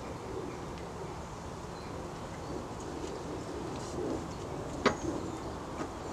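Outdoor ambience with a steady low rumble, and one sharp knock of wood on wood a little before five seconds in as logs on a fire rack are handled.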